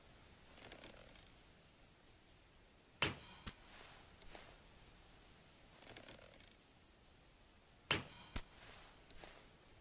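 Longbow shot twice, about five seconds apart: each shot is a sharp snap of the string on release, followed about half a second later by a fainter knock.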